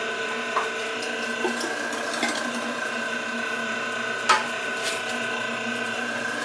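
A 1.5 horsepower stainless steel electric meat grinder running steadily, grinding cooked meat scraps as they are pushed down its feed throat. A few sharp knocks sound over the motor's steady hum, the loudest about four seconds in.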